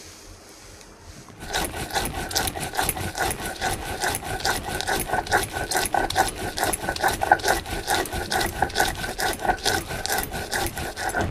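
Stone roller rocked back and forth on a flat grinding stone (sil-nora), crushing mustard and poppy seeds into paste: a rapid, rhythmic stone-on-stone rasping grind that starts about a second and a half in.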